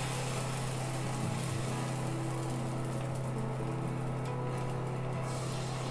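Steady low electrical hum of an induction cooktop running under a frying pan.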